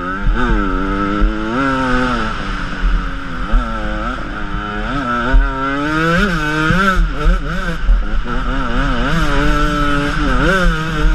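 Enduro motorcycle engine under way on a dirt trail, its pitch rising and falling again and again as the throttle is opened and closed.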